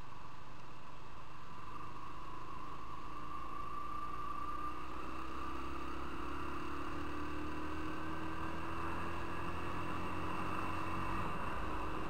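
Motorcycle engine heard from a camera mounted on the bike, accelerating, its pitch rising slowly through the middle, over a low steady rumble.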